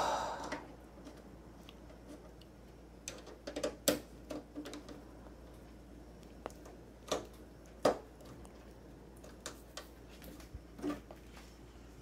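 A screwdriver turning the rear thumbscrews of a steel Phanteks Eclipse P300 PC case: scattered light clicks and knocks of metal and handling on the case, the loudest about four seconds in and again just before eight seconds.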